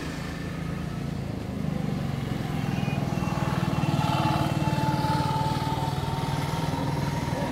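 Motor engine running with a steady low drone, growing louder about a second and a half in.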